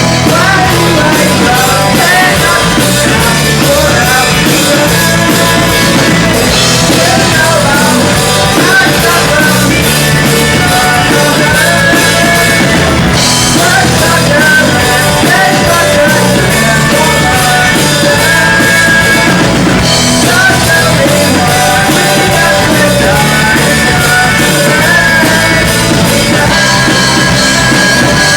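A live rock band playing loud and without a break, with a wavering melody line running over the full band.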